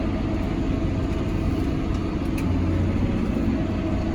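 John Deere tractor engine running steadily under load while pulling a hay baler, heard from inside the cab as an even low rumble.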